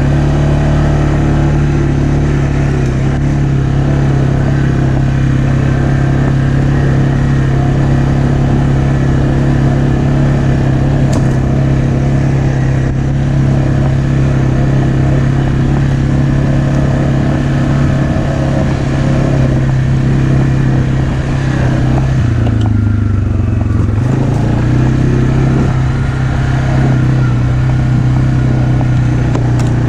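Kymco MXU 450 ATV engine running at a steady idle, with one brief drop in pitch a little over two-thirds of the way through before it settles back.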